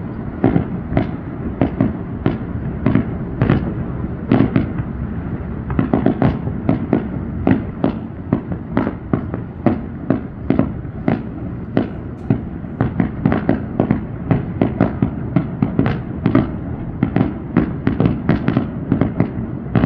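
Fireworks display with shells bursting in quick, irregular succession, several bangs a second, one running into the next.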